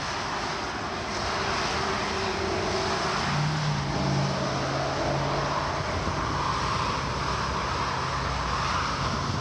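Steady rush of interstate highway traffic passing below, with a low engine drone standing out from about three seconds in.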